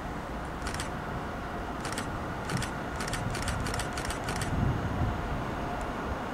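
A distant locomotive approaching along the line, heard as a steady low rumble with faint steady tones. Over it comes a run of about eight sharp metallic clicks in the first four and a half seconds, coming faster toward the end.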